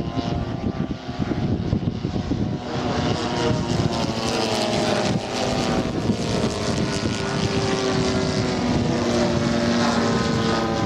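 Engine and propeller of a large-scale radio-controlled model fighter plane running steadily, its pitch wavering slightly and growing a little louder in the second half.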